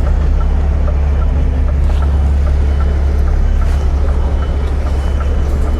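Scania lorry's diesel engine running at a low, steady pitch while manoeuvring slowly, with a faint, regular light ticking over it.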